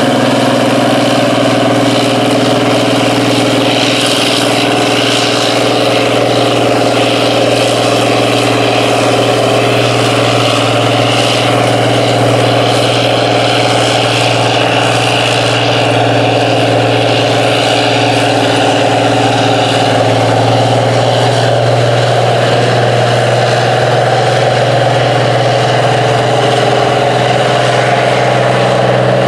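Allis-Chalmers 4W-305 tractor's turbocharged six-cylinder diesel running steadily under load while pulling a field cultivator.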